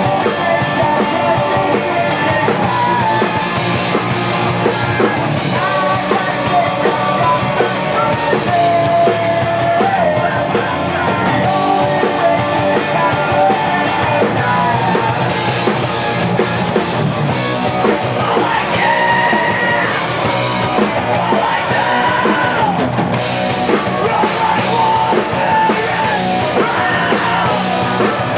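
A rock band playing punk rock live and loud, with guitars, drums and a singer's voice over them.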